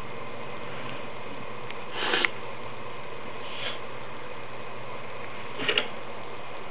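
Savannah monitor breathing in short sniff-like puffs while it swallows a mouse: a strong puff about two seconds in, a faint one a moment later, and another strong one near the end, over a steady hiss.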